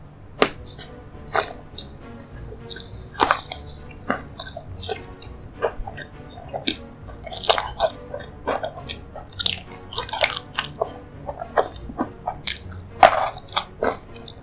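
Close-miked eating of a dessert: biting and chewing, with sharp crunches and mouth clicks at irregular intervals, over soft background music.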